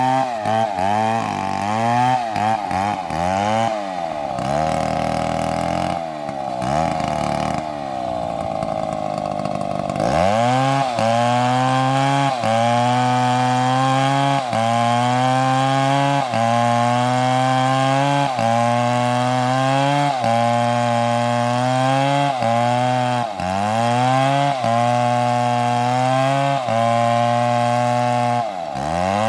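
Two-stroke chainsaw running at high revs while cutting through a tree trunk, its engine pitch dipping and recovering over and over as the chain bogs under load. About a third of the way in it runs lower and steadier for a few seconds, then picks back up and keeps dipping roughly every second.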